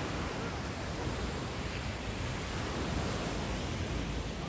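Surf breaking and washing up a sandy beach, a steady rushing hiss, with wind buffeting the microphone.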